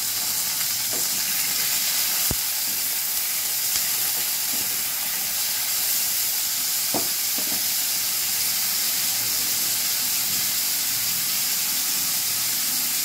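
Pointed gourd pieces frying in oil in a kadai: a steady sizzle, with a couple of sharp clicks about two and seven seconds in.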